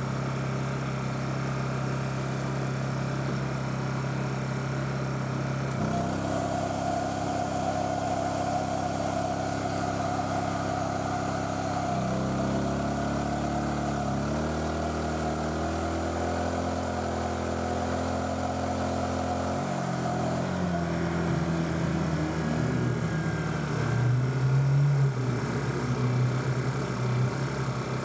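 Small portable inverter generator's engine running steadily. Its speed steps up about six seconds in, shifts again around twelve seconds, then drops back near twenty seconds as the electrical load changes, with a brief louder surge about twenty-four seconds in.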